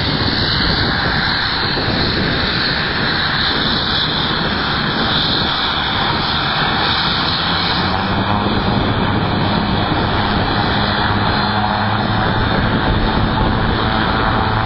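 Fairchild Metro's Garrett TPE331 turboprop engines running with a high whine. In the second half a low propeller drone builds up as the aircraft begins to roll.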